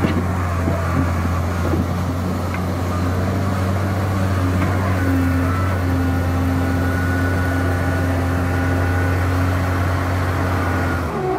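Wheel loader's diesel engine running hard as the bucket pushes into a sand pile and lifts: a steady low drone, with a higher engine note joining about four to five seconds in.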